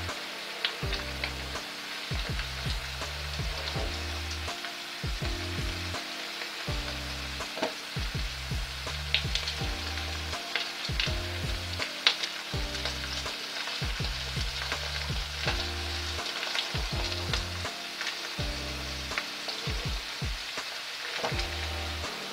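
Rice in fish stock bubbling and sizzling in a wide paella pan on full heat, with sharp crackling pops scattered through, as the last of the broth boils off. Soft background music with a low bass line plays underneath.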